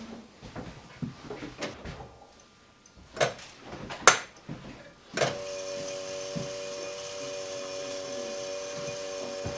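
A few knocks and handling clicks, then about five seconds in a small machine starts up and runs with a steady, even hum.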